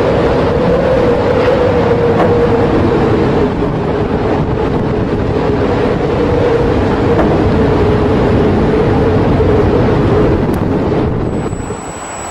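Loud, steady vehicle-like engine drone with a sustained hum at one pitch that sinks slightly, dropping in level near the end.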